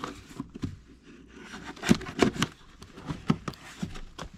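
A cardboard shipping box being opened by hand: irregular scrapes, clicks and rustles of tape and flaps being cut and pulled.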